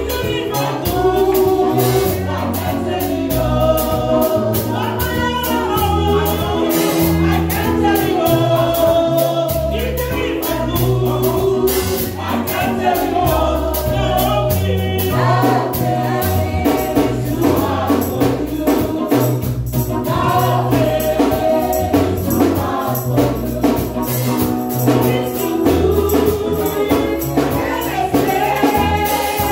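A group of voices singing a gospel praise song over a band, with bass and percussion keeping a steady beat.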